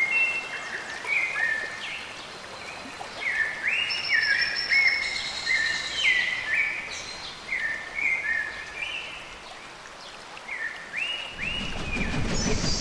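A chorus of birds calling in many short chirps and whistles, several sweeping sharply up in pitch, over a steady hiss of background noise. A low rumble comes in near the end.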